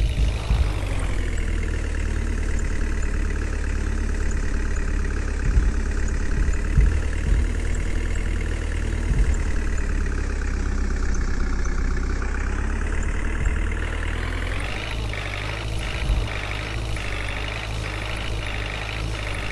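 Heavy vehicle engine running steadily, its pitch sagging and then rising again about two-thirds of the way through; after that, a series of short knocks sounds over it.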